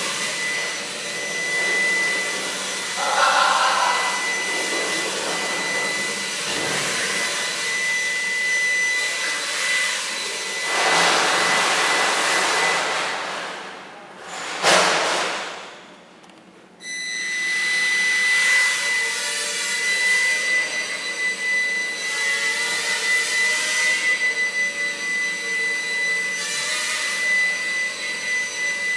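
The eight small 0720 rotor motors of a Walkera QR Spacewalker micro octocopter whining in flight, with a steady high tone. About halfway through the whine dies away as the craft settles on the floor, there is a sharp knock, and then the motors abruptly spin back up to full whine.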